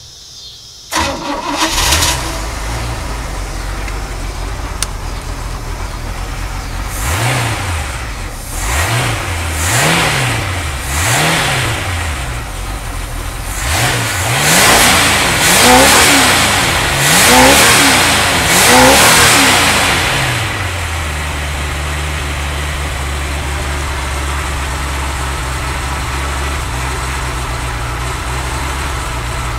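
Glastron-Carlson CVX23 boat's engine catching about a second in on its first start on its own fuel after fuel-system repairs. It is revved up and down several times, then settles into a steady idle about two-thirds of the way through.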